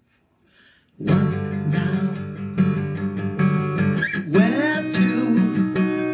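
Acoustic guitar strummed in a steady rhythm, starting suddenly about a second in after near silence.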